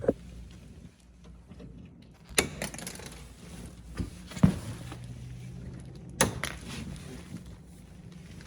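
Side cutters snipping off the excess tails of plastic zip ties: about five sharp snips a second or two apart, the loudest about halfway, over a steady low hum.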